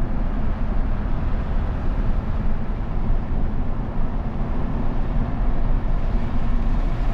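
Steady road and engine noise heard inside the cab of a moving pickup truck: an even, low rumble of the tyres and drivetrain.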